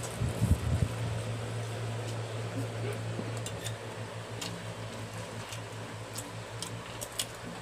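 Electric fan running with a steady low hum, with scattered light clicks of spoons on dishes and a few soft low thumps about half a second in.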